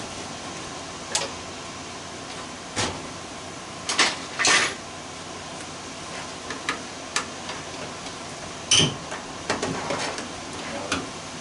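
Scattered metal clanks and rattles of a home furnace's parts being handled and knocked during disassembly, the loudest about four seconds in and again near nine seconds.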